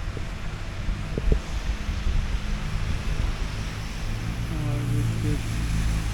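A vehicle engine running steadily with a low hum, with wind on the microphone.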